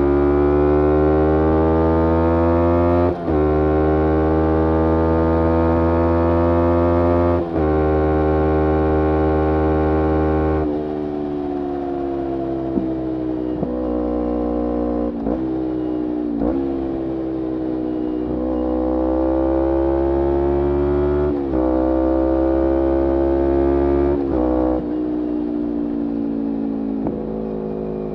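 Kawasaki Ninja 250R's parallel-twin engine through a full Graves racing exhaust, pulling hard with the pitch climbing and two quick upshifts. The throttle then closes and the pitch falls off. It pulls again through two more upshifts, then settles to a lower, steadier note.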